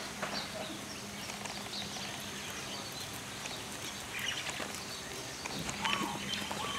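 Faint outdoor ambience: a steady low hum with scattered short, high sounds, a little busier in the second half.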